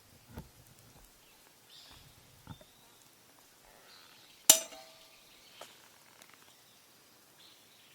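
Metal camp cookware being handled: a couple of soft knocks, then one sharp clink that rings on briefly about four and a half seconds in.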